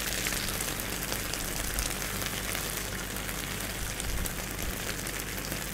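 Mussels, clams and cherry tomatoes sizzling steadily in an oiled frying pan on the heat, a continuous fine crackling hiss.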